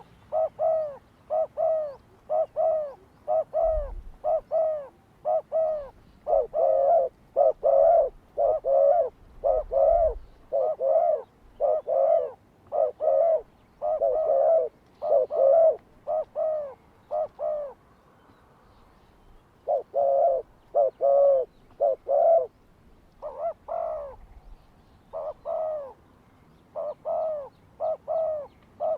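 A dove cooing over and over, short notes at about two a second in long runs, with a break of a couple of seconds about two-thirds of the way through.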